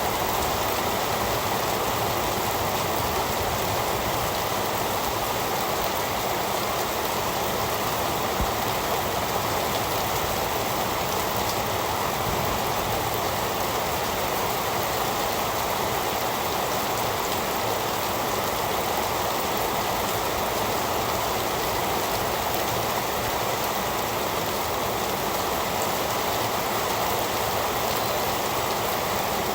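Heavy rain falling steadily, a dense even hiss of drops on surfaces with no let-up.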